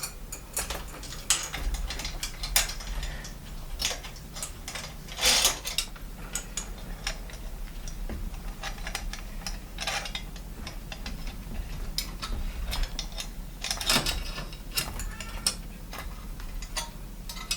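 New bicycle chain clinking and rattling as it is fed over a mountain bike's chain ring: many small metallic clicks, with a few louder rattles.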